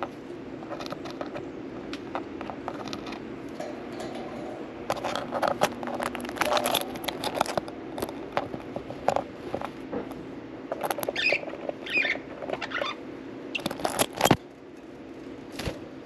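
Budgerigars making scattered clicking and scratching sounds, busiest in the middle, with a few short chirps a little past the middle and a loud clatter near the end, over a steady low hum.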